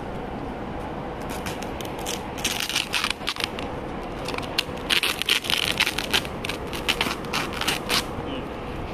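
Packing tape and plastic wrapping being ripped and peeled off a cardboard shipping box: irregular bursts of crinkling and tearing, loudest about halfway through.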